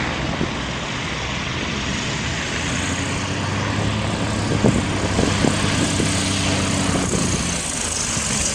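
A propeller aircraft engine running steadily under a loud, even rushing noise, with a few sharp knocks about halfway through.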